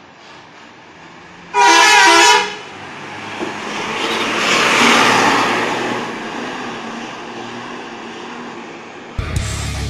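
A bus's multi-tone 'telolet' horn sounds one short, loud blast, then the vehicle passes by in a rush of engine and road noise that swells and fades. Guitar music cuts in near the end.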